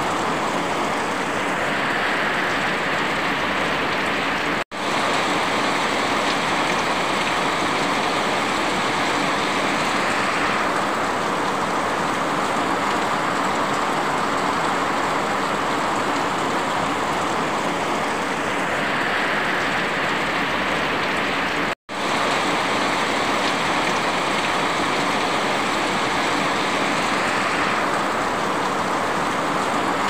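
Heavy rain falling steadily, an even dense hiss that never lets up. The sound drops out for an instant twice, about five seconds in and about twenty-two seconds in.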